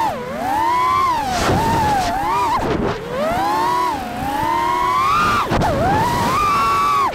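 FPV racing quadcopter's brushless motors whining, the pitch sweeping up and down with the throttle, with several short drops where the throttle is chopped.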